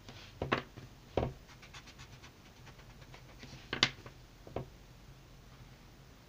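Wooden pencil drawing on paper on a hard tabletop: faint scratchy strokes broken by four sharp taps, the loudest a little before four seconds in.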